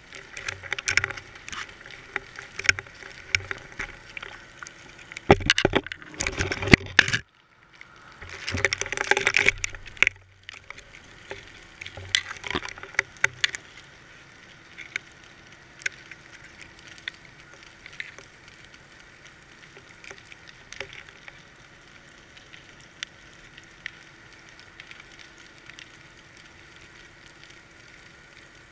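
Muffled underwater sound picked up by a GoPro in its waterproof housing on a fishing line: scattered clicks and knocks from the rig, with two louder stretches of rushing, rattling noise about five to ten seconds in, then fainter, sparser clicking.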